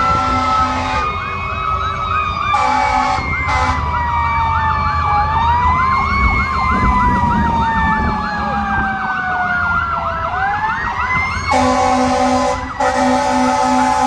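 Several fire trucks sounding their sirens together: slow wails rising and falling over a few seconds, with a fast yelp running underneath. Steady horn blasts come in briefly near the start and again from about two-thirds of the way through.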